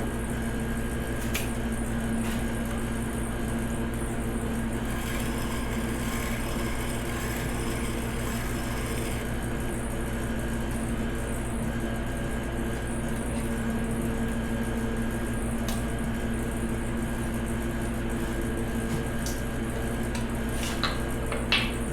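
Electric piston-ring gap grinder running steadily with a constant motor hum. For a few seconds about five seconds in, a brighter hiss joins it as a ring end is held to the abrasive wheel to file the end gap.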